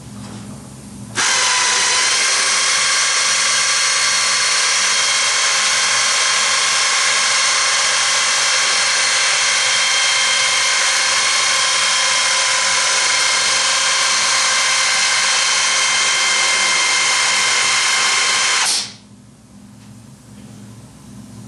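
Motorised dispenser gun of the 3M Dynamic Mixing System running with a steady whine, mixing and dispensing two-part body filler onto a spreader. It starts abruptly about a second in, runs for about 17 seconds and stops suddenly near the end.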